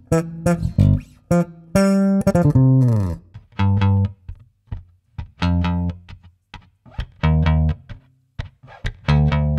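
Electric bass guitar playing a phrase of short, separate plucked notes with gaps between them, and a note sliding down in pitch about two to three seconds in.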